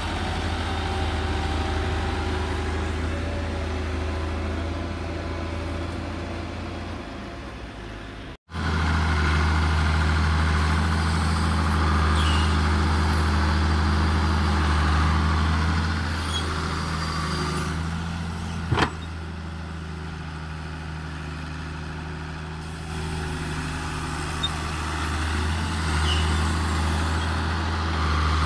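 Massey Ferguson tractor's diesel engine running steadily as it pulls a loaded sand trolley. After a cut, a Hitachi wheeled excavator's diesel engine running as it digs and dumps sand into the trolley, with one sharp knock partway through.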